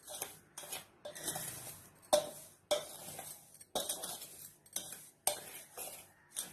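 Steel spoon stirring a dry flour, rava and sugar mix in a stainless steel bowl, scraping and clinking against the metal about every half second.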